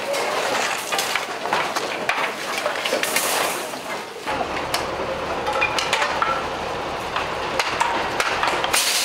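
Wooden market-stall frames being broken up and trampled: irregular knocks, cracks and clatter of wooden slats.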